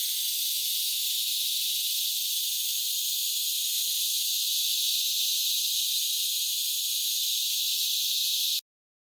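Steady high-pitched hiss that cuts off suddenly near the end.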